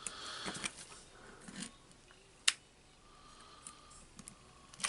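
Faint handling clicks and rustles of small motor parts and wires being fitted by hand, with one sharp click about halfway through.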